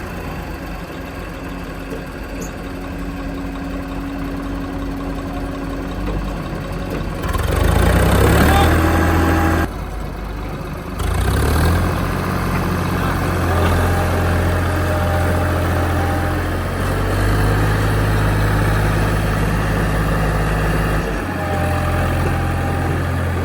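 Diesel engine of a backhoe loader running, with tractor engines. About seven seconds in, a louder, rougher stretch of a couple of seconds cuts off suddenly. From about eleven seconds the engine runs harder and steadier, with a few steps in pitch.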